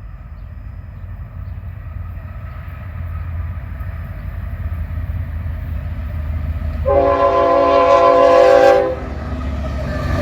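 Diesel locomotives of a fast intermodal freight train approaching, their low rumble growing louder. About seven seconds in, one long locomotive horn blast, a multi-note chord of about two seconds, then the rumble carries on.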